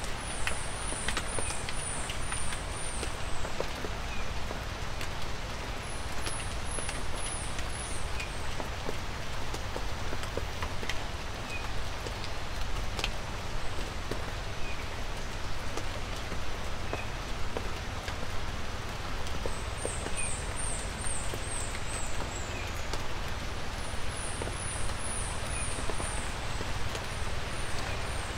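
Light rain falling steadily, an even hiss with single drops clicking through it. Four times, a quick run of high, falling chirps sounds over the rain.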